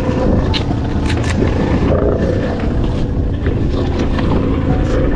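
Wind buffeting the microphone on a small open boat at sea, with scattered short knocks and clicks.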